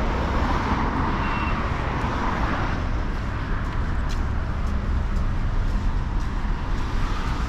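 Steady city road traffic noise, a low rumble of passing cars and trucks, with a louder vehicle hiss swelling in the first couple of seconds.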